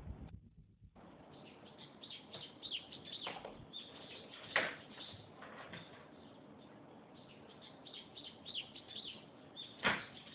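Faint bird chirps in the background, with two sharp knocks, one about halfway through and one near the end.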